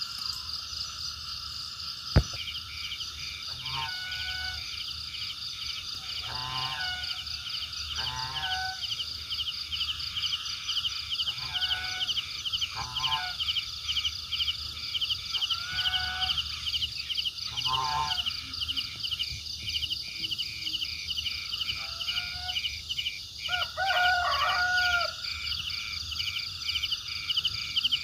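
Chorus of frogs and insects: a steady, fast-pulsing high trill, with short calls every couple of seconds and a longer call near the end. One sharp click about two seconds in.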